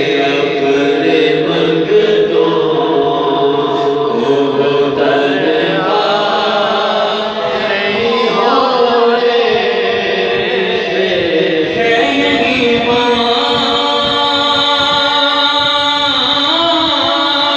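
Men chanting an Urdu devotional kalam (naat) into a microphone, one long melodic line of drawn-out, gliding sung notes.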